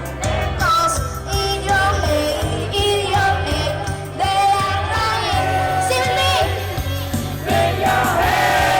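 A young female singer performing live over an amplified backing track, singing long, wavering held notes over a steady bass and beat.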